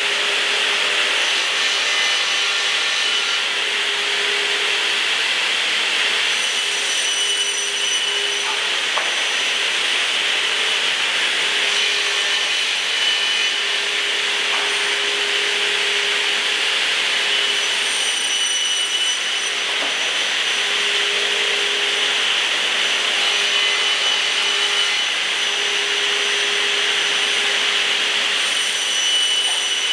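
Pass-through multi-saw trim machine running on lumber: steady sawing noise, with a tone that comes and goes every few seconds.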